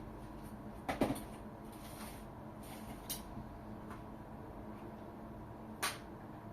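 A few short knocks and clicks from handling microwave oven parts: the loudest about a second in, two lighter ones later. A steady low hum runs underneath.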